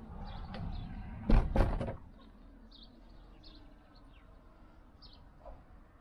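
A door clunking as it is opened and shut, with a few sharp knocks about a second and a half in. After that, faint scattered bird chirps.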